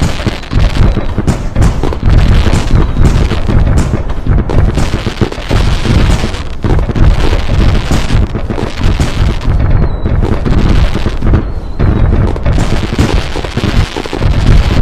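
Fireworks sound effect: a loud, continuous barrage of overlapping booms and crackling bursts.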